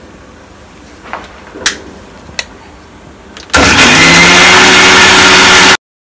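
Electric mixer grinder blending amaranth leaves and roots with water in its steel jar. A few light knocks come first, then about three and a half seconds in the motor switches on with a loud, steady whirr and runs for about two seconds before cutting off suddenly.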